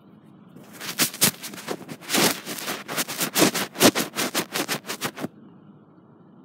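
Phone microphone being handled and rubbed, a dense run of irregular rustling and scraping noises that starts about a second in and stops abruptly a little after five seconds.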